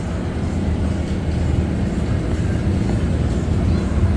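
Steady low rumble of city background noise, even throughout with no distinct events.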